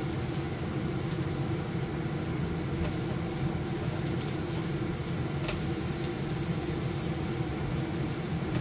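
Steady hum of a kitchen range hood fan over a gas stove, with garlic and onion frying in oil in a nonstick pan and a few faint scrapes of the spatula against the pan.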